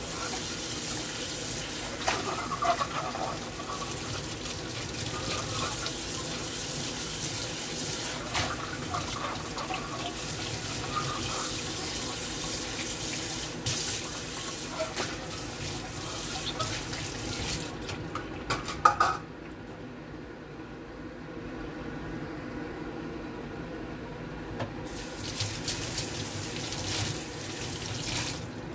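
Tap water running and splashing into a stainless steel sink while a frying pan is rinsed under the stream by hand. There is a brief knock about two-thirds of the way through. After it the splashing goes quieter for several seconds, then picks up again near the end.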